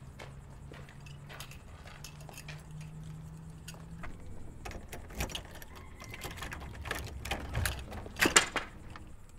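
A bunch of keys jangling and scraping at a door lock, in a run of rattles and clicks that is loudest near the end. Before the rattling starts there is a low steady hum with faint footsteps on gravel.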